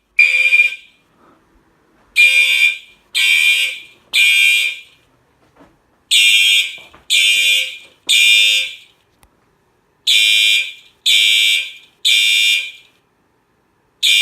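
A Gentex SHG and an older pre-TrueAlert Simplex fire alarm horn-strobe sounding together in the temporal code-3 evacuation pattern: three half-second horn blasts about a second apart, then a pause, repeating. The two horns are in sync.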